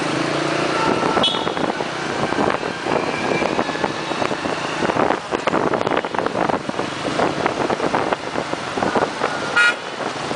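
Motorbike riding in scooter and car traffic: engines running, wind buffeting the microphone, and two short horn beeps, one about a second in and one near the end.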